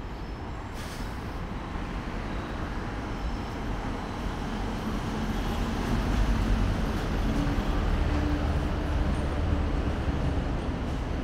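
Street traffic with a heavy vehicle's low rumble that grows louder over the first half and peaks around the middle, a faint engine hum running through it.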